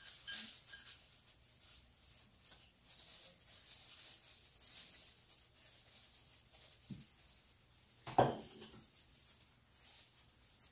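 Faint, quiet handling of dishes and food on a plate, over a light hiss, with a single short knock about eight seconds in.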